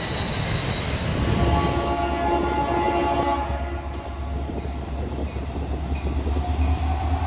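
Freight train wheels squealing as boxcars roll past, then a Norfolk Southern diesel locomotive horn sounding as a second train approaches. The horn starts about a second and a half in, fades, and sounds again near the end over a low engine rumble that grows louder.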